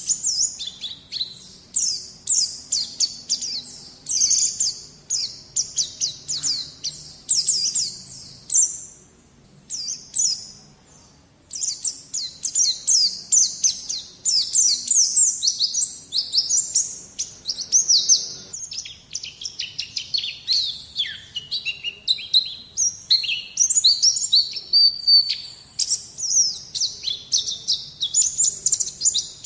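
White-eye (pleci) song: a rapid, continuous run of high twittering chirps and trills, breaking off for about two seconds around a third of the way through, then resuming.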